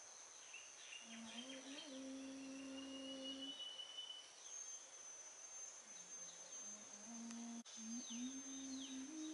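A woman humming a slow lullaby in long, held notes that bend a little. Under it, birds chirp and a steady high insect drone runs throughout. One sharp click comes about three quarters of the way through.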